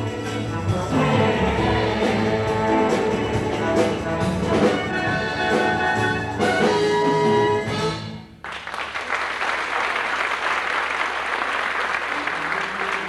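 Brass-led pit orchestra playing the final bars of a musical number, ending on a held chord that cuts off about eight seconds in. Audience applause follows straight away.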